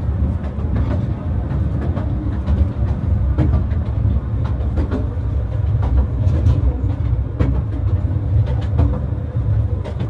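Small jetty tourist train running along its rails, heard from on board the carriage: a steady low rumble with scattered clicks and knocks.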